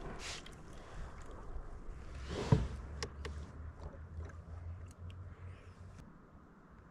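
Canoe paddle strokes in calm lake water: a soft swish near the start and a louder splash about two and a half seconds in, with a low steady rumble under them.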